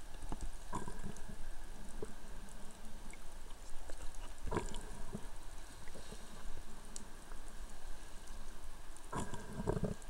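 Underwater sound at a snorkeller's camera: a steady wash of moving water and bubbles, with a few knocks and clicks about half a second in, around four and a half seconds, and a cluster near the end.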